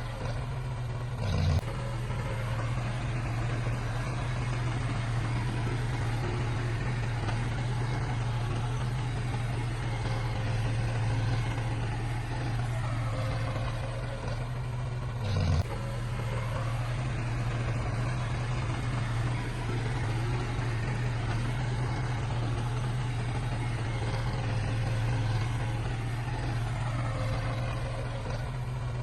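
Heavy diesel engine of earthmoving machinery running steadily with a low hum. A brief louder burst with a falling pitch comes about a second and a half in and again about halfway through.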